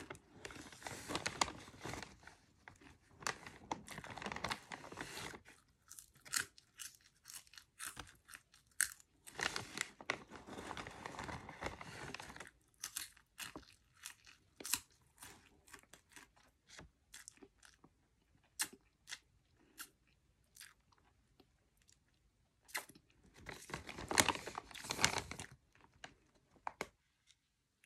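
Crunching and chewing of cheddar cheese popcorn, close to the microphone, in three long bouts with scattered sharp crunches between them.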